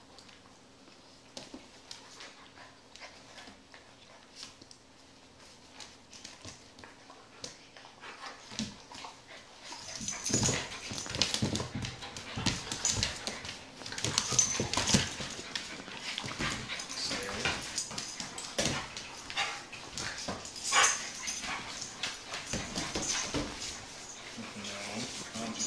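A large wolf-like dog and a pit bull puppy play-fighting on a hard floor: scuffling, with claws clicking and scraping. It is faint at first and becomes much louder and busier about ten seconds in.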